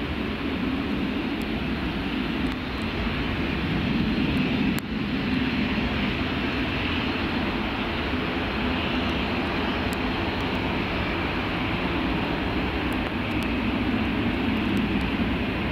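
Jet airliner engines running, a steady rumble and roar that swells slightly a few seconds in.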